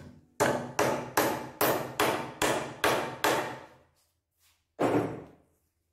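Hammer driving a nail into the wooden frame of a sawhorse: eight quick, even blows, about two and a half a second, then a pause and one more blow.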